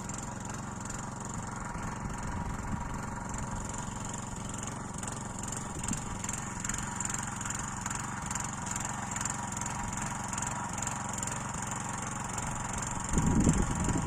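Small engine running steadily at an even speed, most likely a walk-behind tractor working the potato rows. A louder low rumbling noise comes in about a second before the end.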